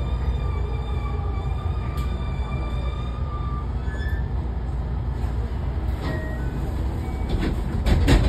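Interior running sound of a JR West 207 series 2000-subseries EMU: the Mitsubishi IGBT VVVF inverter and traction motors whine in thin steady tones over a continuous rumble of wheels on rail as the train slows into a station. A loud burst of clattering noise comes near the end.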